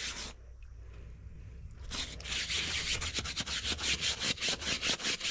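Stiff brush scrubbing a vehicle seat as it is washed, in quick back-and-forth strokes, several a second. The scrubbing pauses briefly near the start and resumes about two seconds in.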